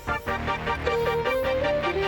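Background music: an electronic track with a steady beat and a short repeating melody.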